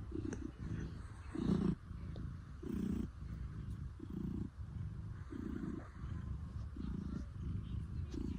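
Domestic cat purring steadily, the purr swelling and easing with each breath, about one swell every 1.3 seconds.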